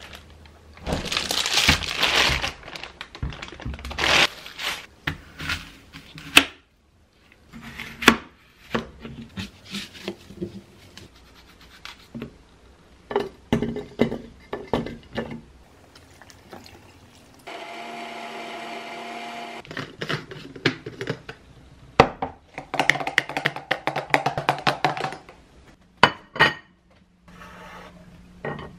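Kitchen food-prep sounds: a plastic produce bag crinkling, knocks and clicks of apple pieces and a glass jar on the counter, then an electric blender running steadily for about two seconds, blending apple and spinach for juice.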